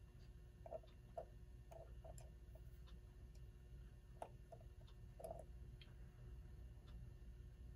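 Faint, irregular small clicks of pliers working at the seized nut holding a 1928 Telechron clock's hands, over a low steady hum.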